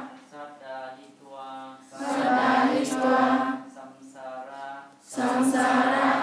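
Buddhist ceremonial chanting in call-and-response: a single voice intones a phrase, and the congregation answers it louder in unison, about two seconds in and again about five seconds in.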